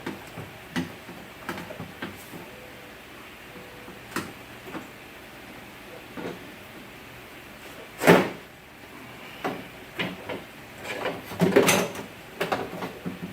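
Scattered clunks, clicks and rattles of car door hardware and tools being handled. There is one loud knock about eight seconds in and a quick run of knocks a few seconds later.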